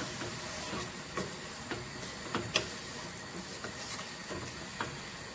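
Wooden spatula stirring shredded cabbage in an aluminium pot, knocking against the pot in irregular sharp clicks, the loudest about two and a half seconds in, over a steady sizzling hiss from the pot.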